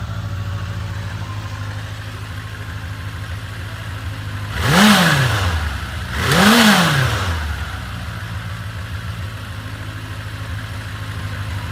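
Honda CB750F (RC04) air-cooled inline-four engine idling steadily, revved twice about five and six and a half seconds in, each rev rising and falling straight back to idle. The seller lists the engine as running without abnormal noise.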